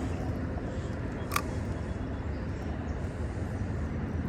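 Steady low rumble of distant road traffic, with a single short tick about a second and a half in.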